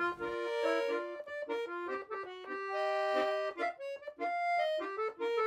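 Accordion music: a tune of short and held notes, with a fuller chord held around the middle.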